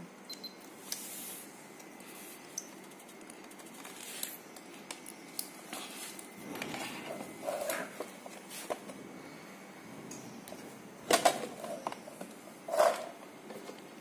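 Hands working plastic parts and wire connectors on a kid's electric ride-on motorbike: scattered light clicks and rustles, with two louder knocks about eleven and thirteen seconds in.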